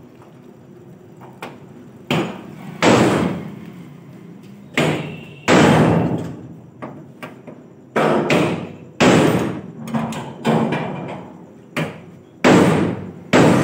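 Heavy hammer blows on metal, about ten of them at irregular intervals and often in pairs, each ringing briefly. The blows are hammering at a seized nut that will not come loose.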